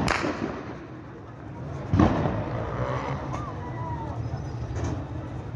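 A loud, sharp bang about two seconds in, echoing, and a fainter bang near the end, over the rumble and voices of a crowd in the street.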